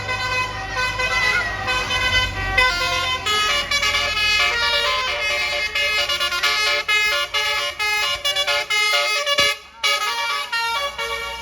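A bus's basuri telolet horn, a multi-trumpet musical air horn, playing a fast melody of stepping chords over the engine's low running. The tune cuts out for a moment about nine and a half seconds in, then starts again.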